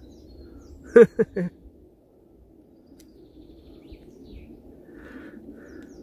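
Quiet outdoor background with a few faint bird chirps; a man mutters briefly about a second in.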